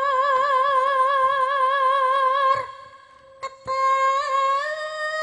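A Javanese sinden's singing voice holding a long note with a wide vibrato, breaking off about two and a half seconds in; after two sharp clicks, she holds a second note that steps up in pitch near the end.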